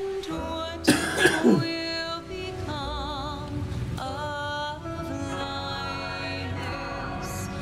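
Film score music: held notes with a wavering melody line. A brief loud noise with falling pitch comes about a second in.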